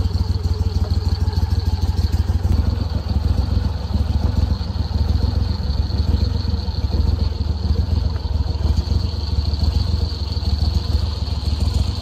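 Go Devil mud motor on a flat-bottom boat running steadily at low throttle, a continuous low engine rumble as the boat creeps forward.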